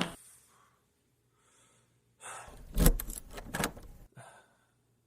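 A sharp breath, then a bathroom door handle rattling with a quick run of clicks for about a second as someone tries the locked door.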